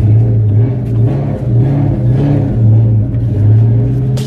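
A 2003 Ford Mustang GT's cammed 4.6-litre V8 running, heard from inside the car's cabin, its engine note rising and falling.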